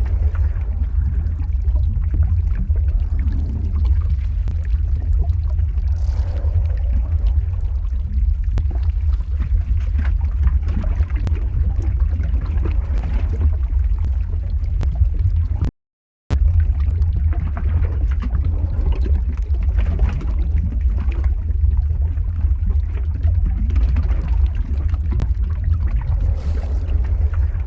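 Lava-flow ambience sound effect: a steady deep rumble with scattered small crackles. About halfway through it cuts out completely for about half a second, then resumes.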